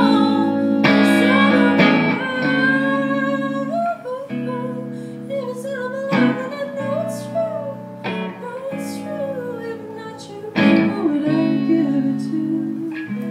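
Live rock song: an amplified electric guitar strumming sustained chords that change about every two seconds, with a woman singing the melody over it.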